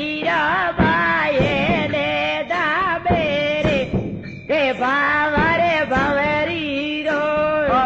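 Folk song: one voice sings long, wavering, ornamented notes over drum strokes, with a brief break about halfway through.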